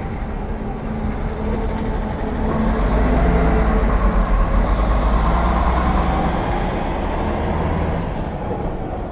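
Road traffic going by, led by a heavy truck whose engine and tyre rumble swells a couple of seconds in and fades away near the end.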